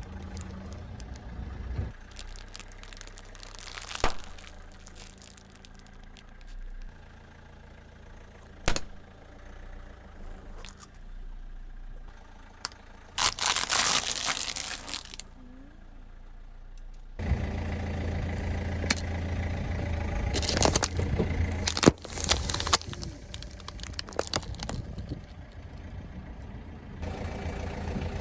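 A car runs slowly over objects and crushes them: separate sharp cracks, a stretch of crunching and tearing, then more snaps, over the low running of its engine. The engine grows louder about two-thirds of the way in.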